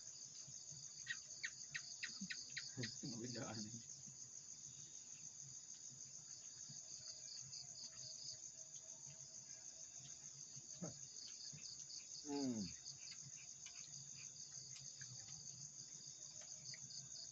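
Chorus of forest insects such as crickets: a steady, high, rapidly pulsing trill. A few clicks sound between about one and three seconds in, and a short downward-gliding sound comes about twelve seconds in.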